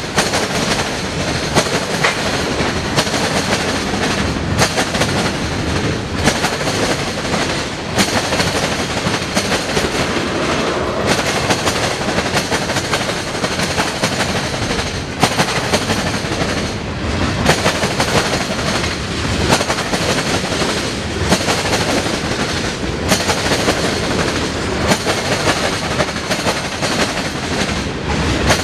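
Freight cars rolling past close by at speed: a steady rumble and rattle of steel wheels on rail, broken by frequent sharp clacks as wheel sets pound across the diamond.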